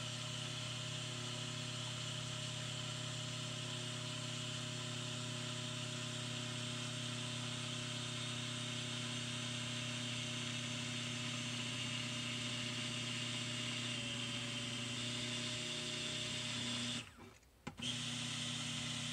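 Stick blender running steadily, immersed in soap batter of oils and lye solution as it is blended toward trace. It cuts out for under a second near the end, then runs again.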